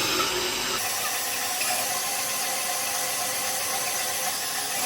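Power drill running steadily under load, drilling out a broken bolt with an upsized bit. The sound is a hissing whine with a faint steady tone and no breaks.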